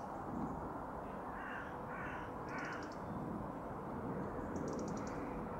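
A crow caws three times in quick succession, harsh calls about half a second apart, over a steady low outdoor rumble. A rapid high ticking sounds twice, once with the last caw and once near the end.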